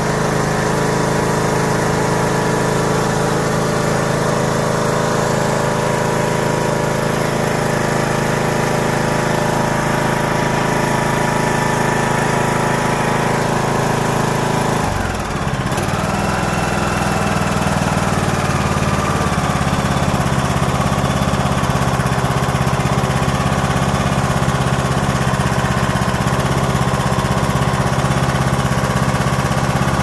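Briggs & Stratton 18.5 hp Intek engine on a Craftsman T130 riding mower, running steadily after its carburetor was ultrasonically cleaned to cure hard starting and surging. About halfway through, the running note dips briefly and changes, then settles again.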